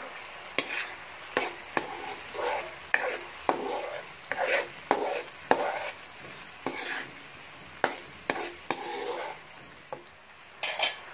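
Metal spatula stirring and scraping through sautéing garlic, onions and tomatoes in a wok, with repeated sharp clicks of metal against the pan, roughly one or two a second, over a steady sizzle.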